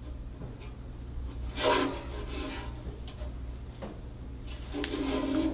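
Handling noise from a worn vintage steel-body Dobro resonator guitar: hands and the rough steel body rubbing and scuffing as it is turned over, with one clear rub about a second and a half in and a few light ticks afterwards.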